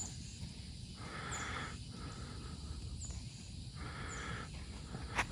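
Outdoor ambience: a low rumble of wind on the microphone, a bird's short, high, falling chirps repeating every second or so, and a hiss in the middle range that swells and fades in pulses. A single sharp click sounds near the end.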